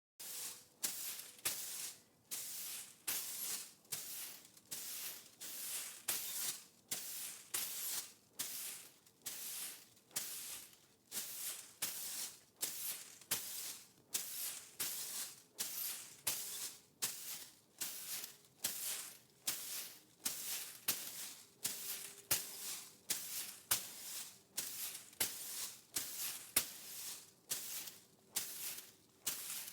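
Broom sweeping a concrete floor in quick, even strokes, each a short bristly swish, a little faster than one stroke a second.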